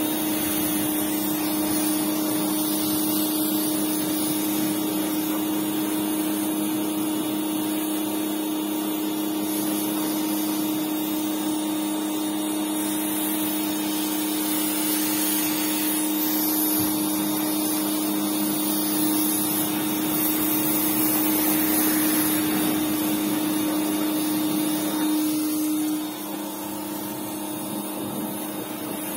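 Small electric pressure washer running, its motor and pump giving a steady hum under the hiss of the water jet. The hum stops near the end.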